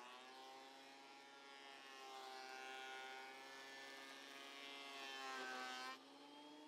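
Vevor 12.5 benchtop thickness planer running with a board feeding through its cutter: an electric motor whine with a cutting hiss, its pitch wavering with the load. About six seconds in, the cutting noise stops abruptly as the board clears, and the motor's pitch rises a little as it runs free.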